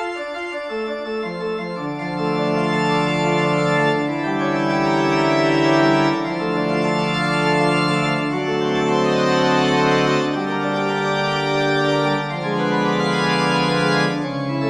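Background music of sustained, organ-like keyboard chords. Low notes step downward over the first two seconds, then slowly changing chords are held.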